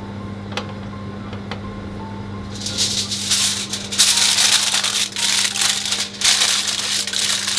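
Aluminium foil crinkling loudly as hands press and wrap it around a hot glass pudding cup, starting about two and a half seconds in and going on in irregular crackly surges. A few soft clicks come before it.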